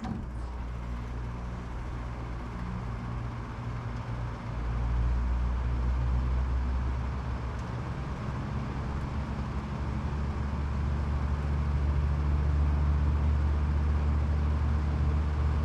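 General Electric Zoneline packaged terminal heat pump starting up in cool mode: the fan comes on suddenly with a steady rush of air. About four and a half seconds in, the compressor starts and adds a low, steady hum, and the unit grows slowly louder.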